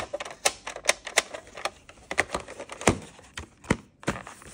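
Hard plastic clattering from a VHS cassette and its Disney plastic clamshell case being handled: a string of irregular sharp clicks and knocks as the tape goes into the case and the case is closed.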